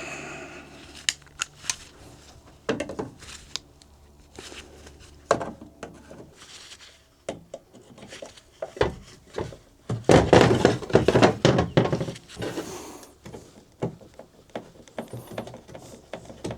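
Hand tools and metal parts clinking and scraping as a corn planter's finger-pickup seed meter is taken apart. Scattered clicks and knocks, with a louder, busier stretch of clatter about ten seconds in.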